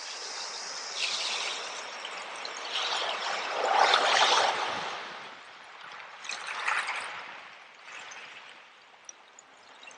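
Running water trickling and splashing in uneven surges, loudest about four seconds in, then dropping away toward the end.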